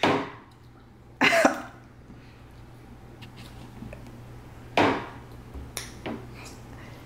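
A young child drinking soda from a bottle, with three short coughing sounds between sips, about a second apart at first and again near the end, and a few faint clicks of the bottle.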